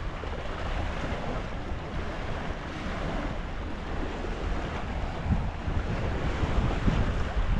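Wind buffeting the microphone in uneven low gusts over a steady rushing noise.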